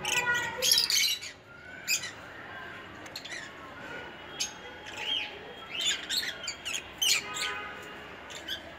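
Lovebirds calling: many short, sharp chirps and squawks, busiest in the first couple of seconds and again near the end.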